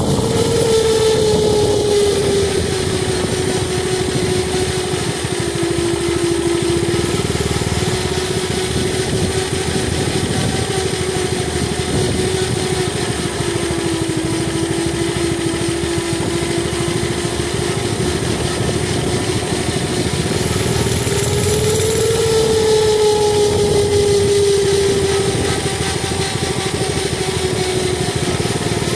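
Mini bike's small engine running while riding along, its pitch drifting up and down a little with the throttle and rising for a few seconds about three quarters of the way through.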